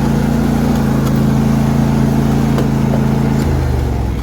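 John Deere D125 riding lawn mower's V-twin engine running steadily under throttle, then dropping sharply in pitch about three and a half seconds in as it slows down.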